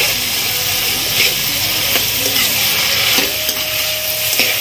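Chilli paneer stir-frying in a metal wok: the paneer, peppers and onions sizzle steadily while a metal spatula stirs the freshly added sauces through, scraping the pan about once a second.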